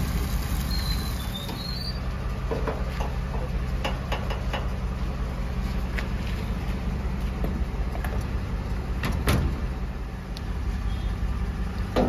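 An engine idling steadily, with scattered clicks and clanks of a fuel pump nozzle and tank filler being handled, and one louder knock about nine seconds in.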